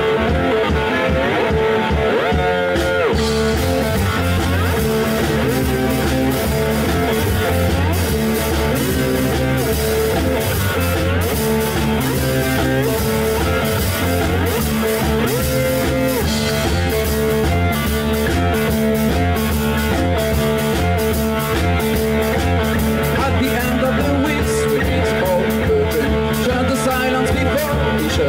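Live blues-rock trio playing: lap steel guitar with sliding notes over electric bass and a drum kit. The sound fills out with cymbals and a heavier low end about three seconds in.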